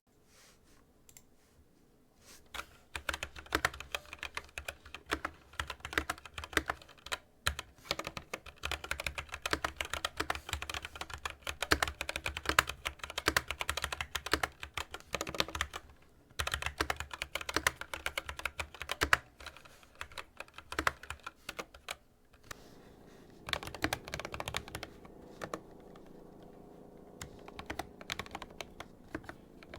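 Fast typing on a mechanical keyboard with lubed Gateron Yellow linear switches and PBT keycaps, a dense run of keystroke clacks with a couple of brief pauses. Past the two-thirds mark the keystrokes thin out and a faint steady hum comes in underneath.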